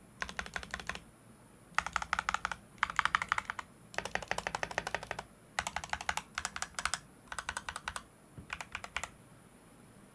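Fast typing on a mechanical keyboard with factory-lubed Leobog Greywood v3 linear switches (POM long-pole stem, nylon bottom housing). About eight quick runs of keystrokes are separated by short pauses, and the typing stops about nine seconds in.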